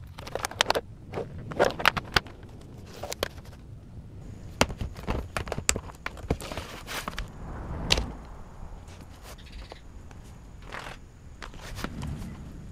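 White plastic marker carrying case being unlatched, opened and handled: a run of sharp plastic clicks and knocks, with a heavier knock about eight seconds in.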